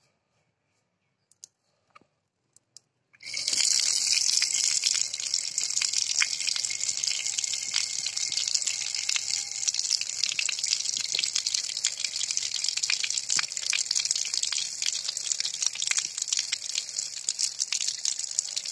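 Rain falling, starting suddenly about three seconds in: a steady loud hiss with a patter of many small drops.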